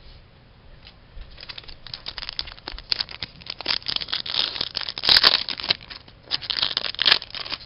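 Plastic wrapper of a hockey trading-card pack crinkling and tearing as it is ripped open. It is a dense run of crackles starting about a second in, loudest about two thirds of the way through.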